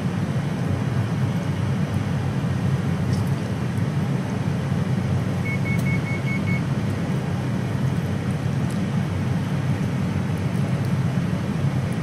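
A steady, loud low hum of running machinery, with a quick run of five short, high electronic beeps about halfway through.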